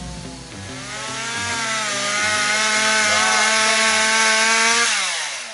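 Chainsaw revving up and cutting through a fallen log. Its note dips briefly under load a little past halfway, then the throttle is let off near the end and the pitch falls away.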